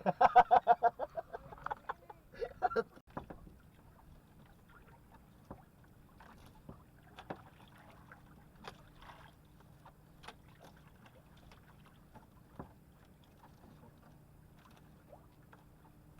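A brief, loud voice-like sound, then a faint steady hum with scattered small knocks and taps.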